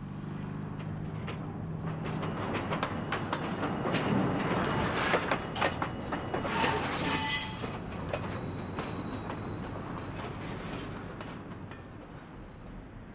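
Electric interurban railcar rolling over street trackwork: steel wheels clicking over rail joints and crossings, with a brief high wheel squeal about seven seconds in. The sound fades toward the end.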